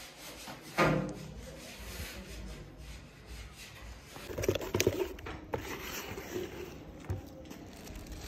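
Paintbrush rubbing in repeated strokes along a door frame. A brief louder vocal sound comes about a second in.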